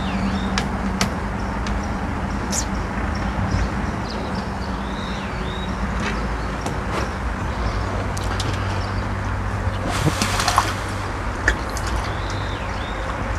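Steady outdoor background noise with a low hum under it, a short chirping call heard three times, and scattered light clicks. A brief hiss comes about ten seconds in.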